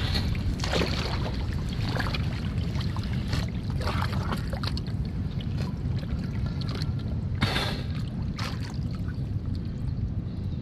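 Water sloshing and splashing in a rocky tidal pool, in several short bursts, over a steady low rumble.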